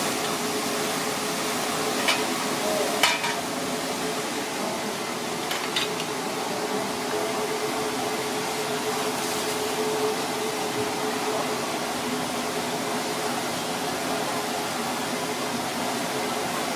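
Hot oil sizzling in a deep-fry pan, a steady hiss over a low kitchen hum, with a few sharp metal clicks of utensils against the wire strainer and pans in the first seconds.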